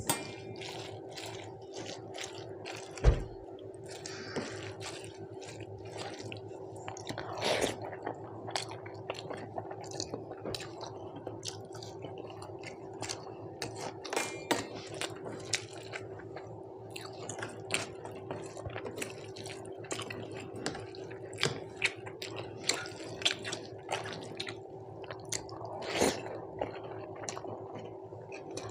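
Eating sounds: rice, dal and curry being mixed and eaten, with many short wet smacks and chewing, and a few louder knocks on the plate.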